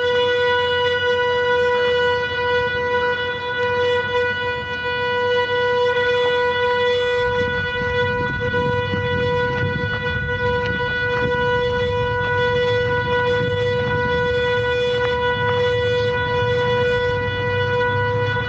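Steady electric whine from the motors of a DIY Arduino-driven brushless camera gimbal: one constant pitch with a row of overtones, unchanging throughout. A low rumble joins it about seven seconds in.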